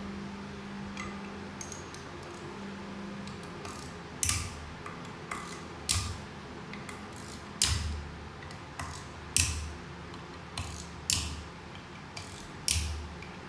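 Hand ratchet wrench clicking in short strokes, one roughly every one to two seconds from about four seconds in, as bolts are backed out of an automatic transmission valve body. A steady low hum runs underneath.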